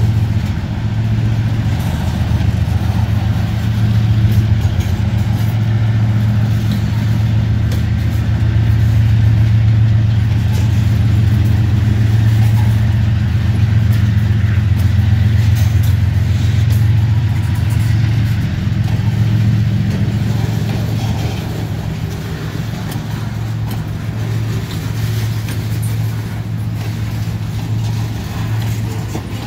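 Norfolk Southern diesel freight train, a steady low locomotive engine drone that eases off slightly near the end.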